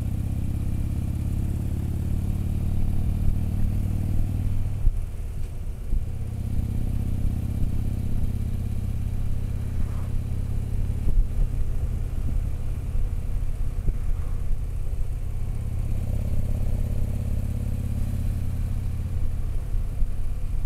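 Touring motorcycle engine running steadily while riding along the road. The engine note drops away briefly about five seconds in, then picks up again.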